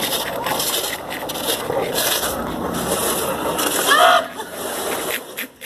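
Commercial tumble dryer running with a person inside the drum: a steady rushing hum with scattered knocks as the drum turns. A short vocal cry comes about four seconds in.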